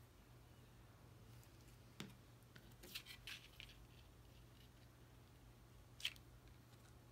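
Near-silent room tone broken by a few small taps and light clicks of paper pieces and crafting tools being handled on a table. There is one tap about two seconds in, a quick cluster of clicks a second later, and a sharper tap near the end.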